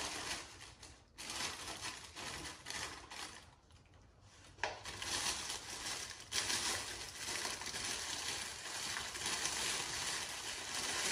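Thin plastic sleeve around a potted plant crinkling as it is handled and pulled down off the plant. It comes in bursts at first, then runs nearly continuously from about five seconds in.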